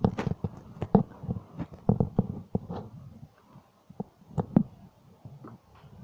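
A string of irregular soft knocks and thumps, thickest in the first three seconds, thinning out, then a few sharper knocks a little after four seconds.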